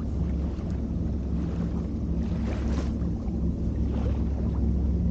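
A boat's motor running steadily, with a noisy hiss of wind and water over it.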